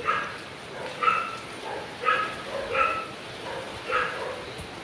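A dog barking in short, repeated calls, about one a second.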